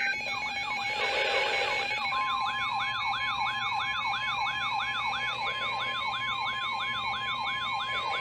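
Electronic emergency alert tones overlapping: a siren-like warble sweeping up and down about three times a second, joined about two seconds in by a steady high alert tone. A short burst of static hiss comes about a second in.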